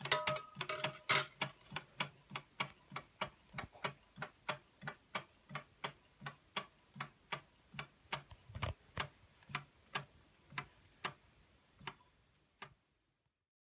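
Early Carette hot-air (Stirling) engine running, making an even mechanical ticking that slows from about four to about two ticks a second and then stops. A short ringing tone sounds in the first second.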